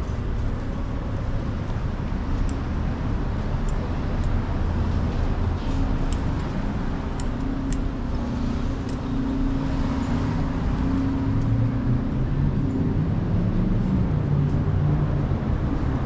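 City street traffic: a steady rumble of passing vehicles. About halfway in, one engine's hum comes to the fore, then drops in pitch over the last few seconds.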